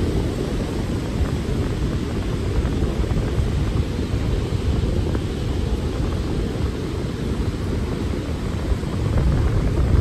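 Wind buffeting the phone's microphone as a steady low rumble, over the wash of ocean surf.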